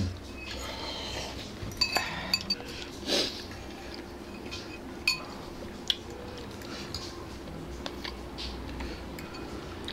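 Metal forks and spoons clinking and scraping against ceramic bowls and a plate as noodles are lifted and eaten, with a few sharp clinks about two seconds in and again around five to six seconds.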